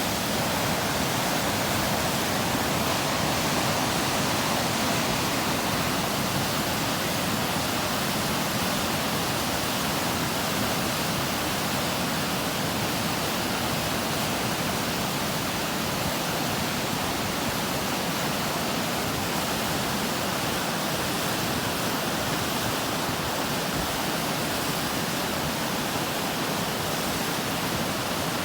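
Flowing water rushing steadily, an even, unbroken hiss.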